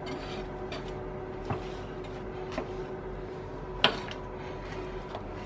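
A knife cutting a baked pancake on a wooden chopping board, with a few light knocks of the blade and pieces on the board and one sharper knock nearly four seconds in, over a steady background hum.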